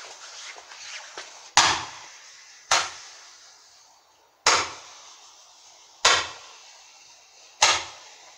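A firework fizzing and crackling for a moment, then firing five loud bangs about one to two seconds apart, each with a short echoing tail.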